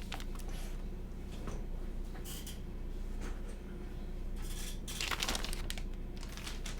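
Packaging being handled: irregular rustling and crinkling with a few light clicks and knocks, the loudest rustle about five seconds in.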